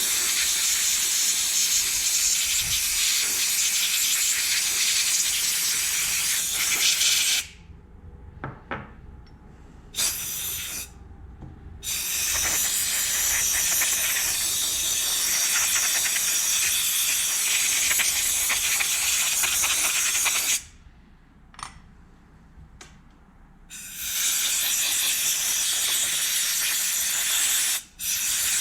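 Compressed air from an air hose blowing through a pressure washer's small-engine carburetor, hissing in several long blasts of several seconds each with short pauses between them, clearing out its passages after cleaning.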